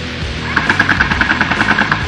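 Airsoft electric rifle firing a full-auto burst, a rapid even rattle of about ten shots a second that starts about half a second in and lasts roughly a second and a half, over background music.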